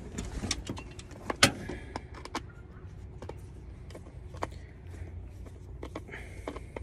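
Screwdriver clicking and scraping on the screws of a plastic chalk line reel as it is taken apart, with scattered small plastic clicks and one sharper knock about a second and a half in, over a low steady rumble.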